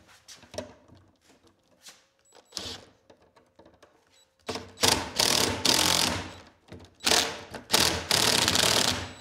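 A DeWalt cordless driver spinning a drill wire-twister attachment in two bursts of about two seconds each, starting about halfway in, twisting the stripped neutral wires together. A few light handling clicks come before it.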